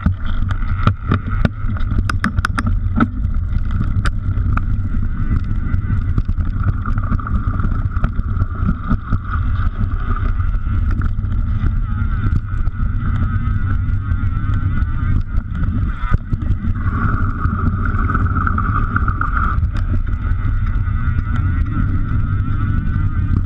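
Mountain bike riding down a dirt singletrack. Heavy wind rumble on the microphone, with rattles and knocks from the bumps over a steady high buzz that swells for a couple of seconds about two-thirds of the way in.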